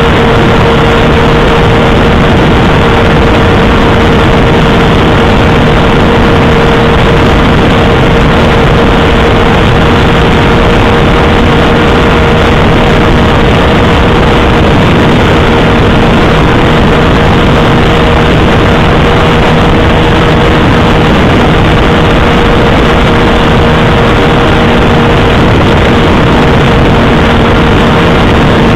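Loud, steady rush of wind and road noise over a motorcycle-mounted camera, with an engine drone holding one steady pitch at cruising speed.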